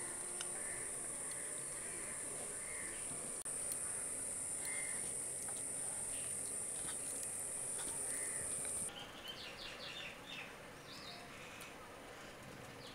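A steady, high-pitched insect drone that cuts off suddenly about nine seconds in, followed by scattered bird chirps.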